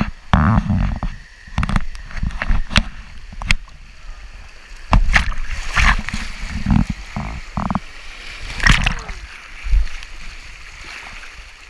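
Fast, shallow river water rushing and splashing around an inner tube going through small rapids, with irregular loud splashes and knocks as water hits right at the camera.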